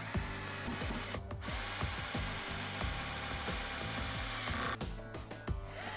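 Power drill driving pocket screws into redwood boards, the motor whining with two short breaks, about a second in and near the end, picking up again just before the end.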